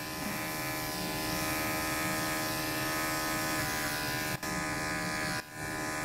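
Electric pet grooming clippers running with a steady buzz as they shave out a cat's matted fur. The sound drops away briefly twice near the end.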